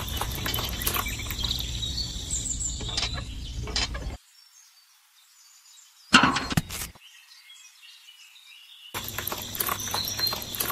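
Wet cement pouring from a miniature cement mixer's tipped drum into a small tin bucket, with a steady high whine over it; the sound cuts off about four seconds in. A short clatter follows around six seconds in, and pouring starts again near the end.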